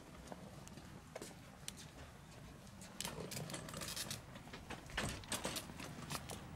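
A pushed dog cart's wheels rolling over pavement with a low rumble, rattling with irregular clicks and knocks that grow busier and louder from about three seconds in.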